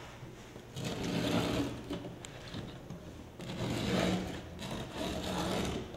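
Utility knife blade drawn through grip tape, making gritty rasping scrapes in three strokes: about a second in, around four seconds in, and just before the end.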